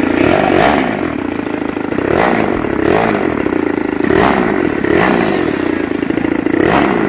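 Small nose-mounted model-airplane engine running on an RC plane as it taxis, a steady buzzing drone with short louder surges every second or so.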